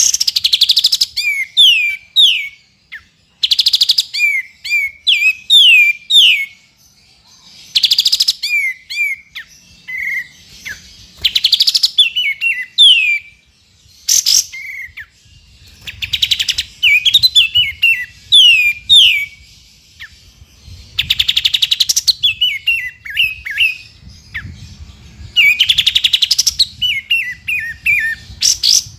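Olive-winged bulbul (kapas tembak) singing: repeated phrases of quick downslurred whistled notes, broken every few seconds by short, rapid chattering bursts.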